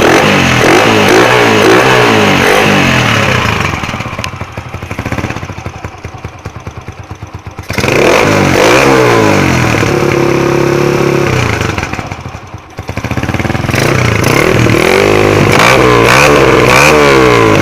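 Motoposh Typhoon 150 motorcycle engine, fitted with aftermarket cams and CDI, being revved in repeated throttle blips. Partway through it drops back to a quieter idle for a few seconds, later holds a steady high rev briefly, then goes back to blipping.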